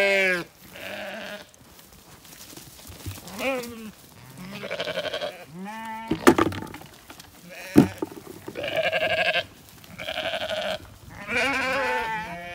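Zwartbles sheep bleating over and over, one call after another. Two sharp knocks about a second and a half apart, about halfway through, are the loudest sounds.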